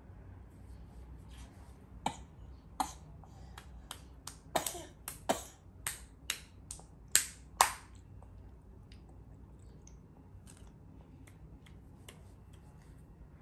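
A toddler clapping his small hands together in an irregular run of sharp claps lasting several seconds, the last two the loudest, then a few faint claps.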